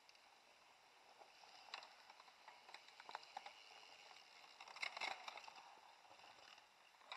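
Mountain bikes riding past on a dirt forest trail: a faint rush of tyres over soil and leaf litter with scattered clicks and crackles, swelling to its loudest about five seconds in.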